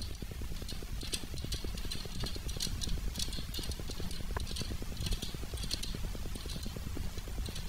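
Rear brake rod adjusting nut on a Honda CRF110's drum brake being spun loose by hand, clicking rapidly and steadily as its notches pass over the pivot pin, with sharper clicks about twice a second.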